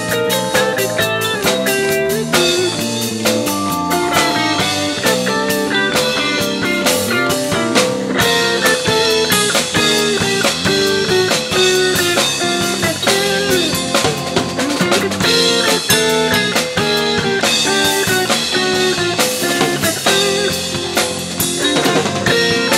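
Jazz-funk fusion band playing live, with drum kit and guitar.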